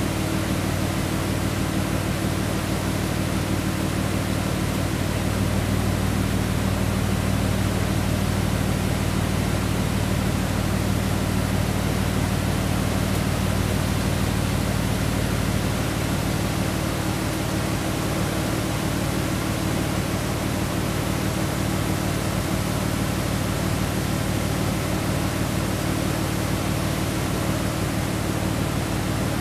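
Sabinal River floodwater rushing over a low-water road crossing, a steady, even roar with a steady low hum underneath.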